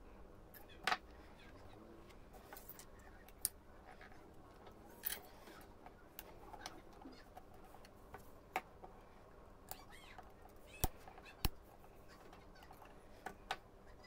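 Scattered sharp clicks and taps of small plastic parts being handled and fitted together in an Opel Vectra B turn-signal and light-switch stalk, about eight over the stretch, with the loudest pair close together near the end.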